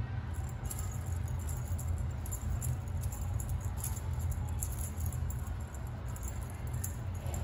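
A cat wand toy's beaded metal chain rattling and clinking in quick, irregular taps as a kitten bats at it and the toy is swung. A steady low hum runs underneath.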